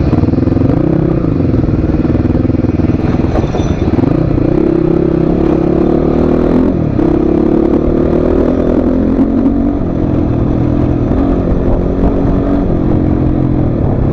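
Motorcycle engine running while ridden, its pitch rising and falling several times with the throttle.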